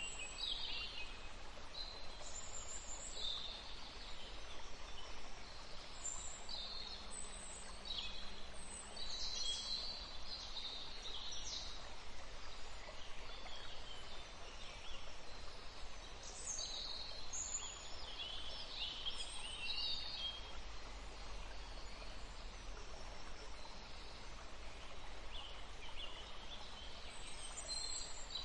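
Small birds chirping in scattered runs of short, high, downward-sweeping calls, over a steady low rumble.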